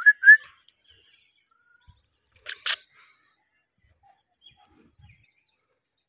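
Alexandrine parakeet giving two quick high chirps, then about two and a half seconds later two short harsh, hissy sounds.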